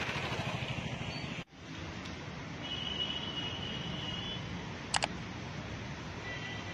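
Steady street background noise with traffic, which drops out for an instant about a second and a half in and then resumes, with a faint high tone in the middle. About five seconds in comes a sharp double mouse-click sound effect.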